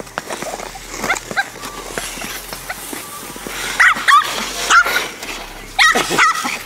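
A puppy barking and yipping: a few short, high barks about four seconds in, then another quick run of yips near the end.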